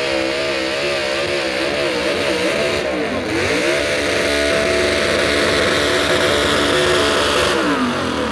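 Supercharged V8 of a modified 4x4 pulling truck running at high revs under load on the sled, its pitch wavering. The revs dip briefly about three seconds in, climb back and hold, then fall away near the end as the throttle comes off.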